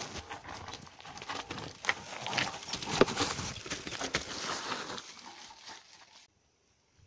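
Mountain bike clattering over rocks and dry leaves, with irregular knocks of tyres and frame on stone. The clatter cuts off suddenly near the end.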